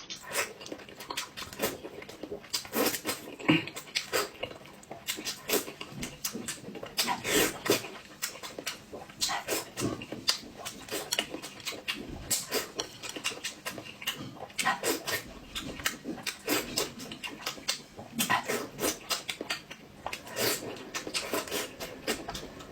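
Close-miked eating sounds: irregular wet crunching and chewing, many sharp crackles a second.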